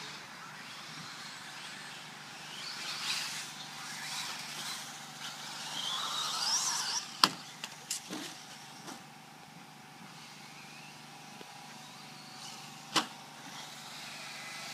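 Kyosho Lazer electric RC buggy making passes on a dirt track. Its motor whine rises and falls as it accelerates and slows, along with tyre noise. There are two sharp knocks, about seven seconds in and again near the end, and a quieter stretch between.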